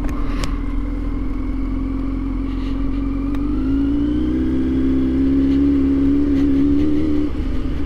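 Kawasaki Z900 inline-four engine pulling away under throttle, its pitch rising about halfway through, holding, then falling off near the end. Wind rushes over the helmet microphone throughout.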